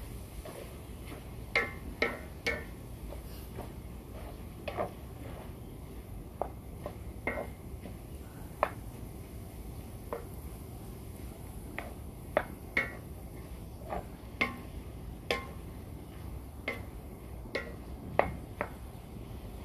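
Wooden spatula knocking and scraping against a large aluminium pan while mixing diced bopis, in irregular clacks roughly one or two a second.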